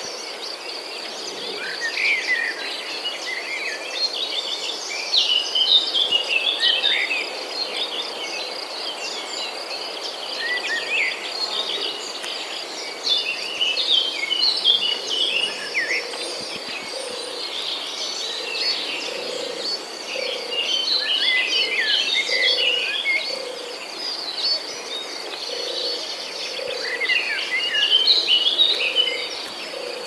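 Songbirds singing in repeated bouts of quick chirping notes over a steady, high insect trill that runs without a break.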